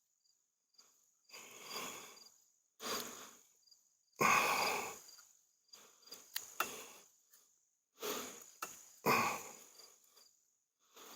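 A man breathing hard, about six loud breaths in eleven seconds, while he twists a screw-in fitting into a tree trunk by hand. A few sharp clicks come in the second half. Crickets chirp faintly throughout.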